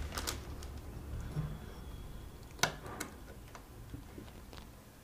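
Light metallic clicks and taps from Royal Enfield UCE gearbox parts being pressed by hand into their seats in the casing. There are a few separate sharp clicks, the loudest about two and a half and three seconds in, over a faint low hum.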